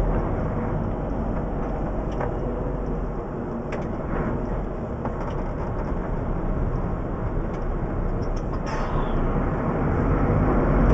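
Steady diesel engine and road noise of a DAF CF lorry driving slowly, heard from inside the cab, with a few faint clicks.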